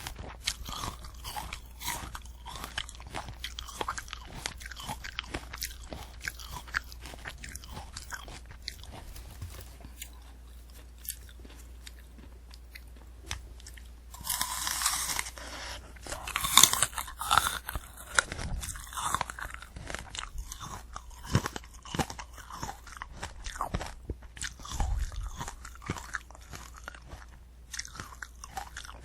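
Close-miked chewing and crunching of a candy apple: the hard sugar shell and crisp apple cracking between the teeth. The chewing eases off for a few seconds before loud fresh bites come about fourteen to seventeen seconds in.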